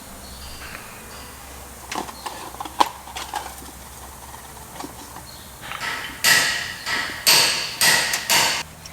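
A few light metal clicks, then a C-clamp screw being turned to press a piston into a brake caliper: a run of squeaky scraping strokes, about one a second.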